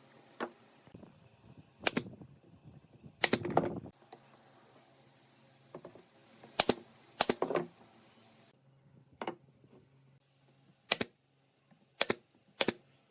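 A series of sharp, irregular knocks and clicks, some single and some in quick pairs, with a short cluster of louder knocks about three seconds in.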